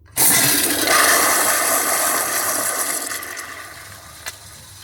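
Gerber Ultra Flush pressure-assist toilet flushing from its 1.6-gallon EcoFlush pressure vessel: a sudden loud rush of water that holds for about three seconds, then fades to a quieter hiss. A single sharp click comes near the end.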